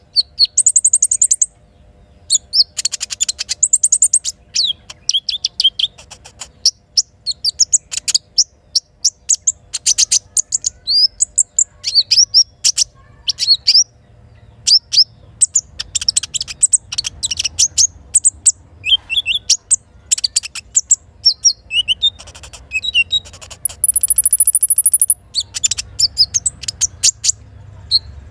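Little spiderhunter singing energetically: a fast run of sharp, high chirps and trills that goes on almost without a break, with a long high whistle held for a second or two near the end.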